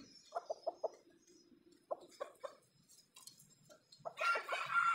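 Rooster giving two runs of short clucks, then starting a crow about four seconds in.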